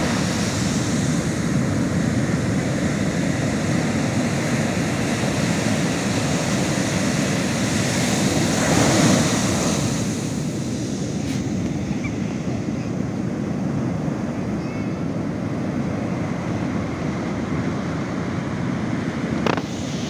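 Heavy ocean surf breaking on a beach: a steady rush of waves, with one wave crashing louder about nine seconds in, then a softer wash. A brief knock near the end.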